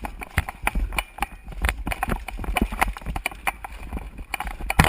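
A quick, irregular string of clicks and knocks close to a rifle-mounted camera, a few each second, with the loudest knock near the end: the footsteps and rattling gear of a player on the move.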